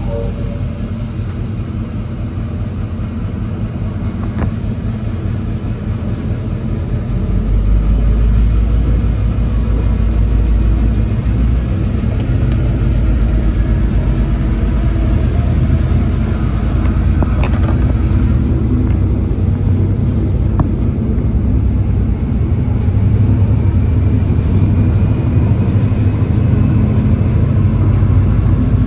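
N-class diesel-electric locomotive hauling a passenger train, a steady low rumble that grows louder about a quarter of the way in. A faint high whine slowly rises in pitch through the second half.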